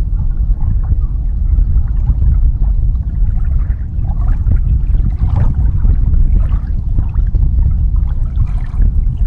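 Water lapping and splashing against a small boat's hull over a heavy, low rumble of wind on the microphone. The splashing is louder around the middle and near the end.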